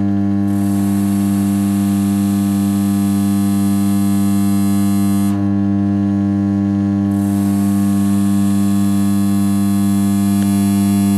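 Power transformer in a 33 kV substation humming steadily, a deep 100 Hz hum with strong overtones at 200 and 300 Hz, the normal hum of a 50 Hz transformer. A fainter hiss behind it drops out for about a second and a half, around five seconds in.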